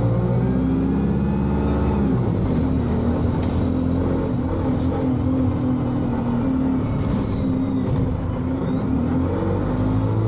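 Alexander Dennis Enviro 200 single-deck bus engine running hard under load, its note shifting as the revs change, with a high-pitched whine that climbs, holds, drops away about four seconds in, and starts climbing again near the end.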